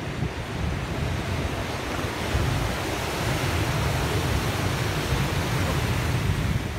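Steady wash of rough surf breaking on a boulder beach, with wind rumbling over the microphone.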